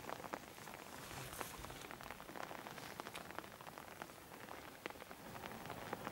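Light rain falling, close drops ticking irregularly over a faint steady hiss.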